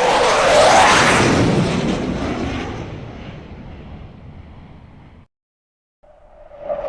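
F-16 fighter jet flying past: a loud rushing jet roar peaks within the first second as its pitch falls, then fades away over several seconds and cuts off abruptly. After a short silence a second pass begins building near the end.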